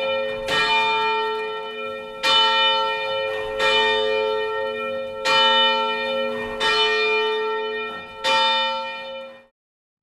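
Church bell tolling: six strikes about every one and a half seconds, each ringing on into the next, the last one fading out near the end.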